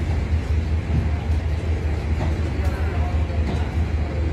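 An engine running steadily at low revs: a deep, evenly pulsing rumble, with faint voices in the background.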